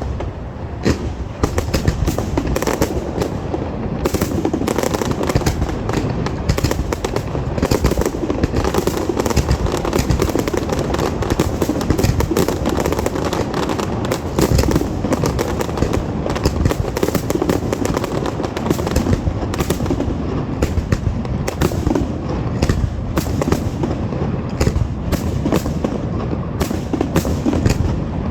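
Fireworks display going off in a dense, unbroken barrage: many bangs and crackles each second, with deeper booms among them.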